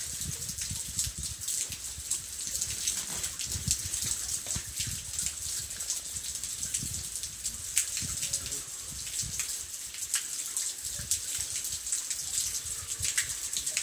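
Flowing stream water rushing steadily, with irregular low rumbling and scattered faint clicks over it.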